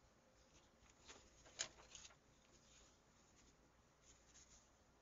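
Faint rustling and crinkling of a sheet of paper being handled and folded, with one sharper crackle about a second and a half in.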